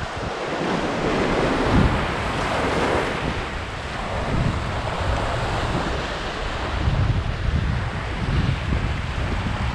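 Pacific surf washing and foaming over shore rocks, with wind buffeting the microphone in uneven gusts.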